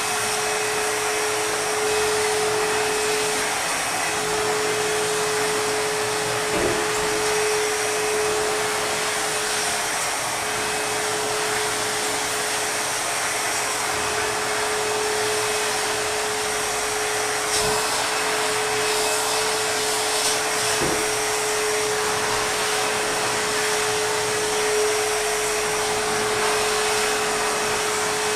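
ProTeam backpack vacuum cleaner running steadily, its motor giving a constant whine over the rush of air, with a few light knocks along the way.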